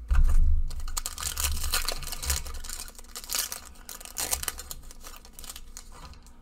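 Foil wrapper of a Magic: The Gathering Zendikar Rising draft booster pack crinkling and tearing as it is ripped open by hand, after a soft bump at the start. The crackling is busiest in the middle and thins out over the last couple of seconds.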